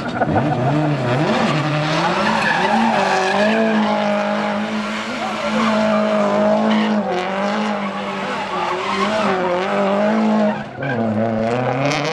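Subaru Impreza WRC's turbocharged flat-four boxer engine held at high revs as the car spins donuts, its tyres spinning and smoking on the tarmac. The revs waver throughout, drop briefly near the end, then climb again.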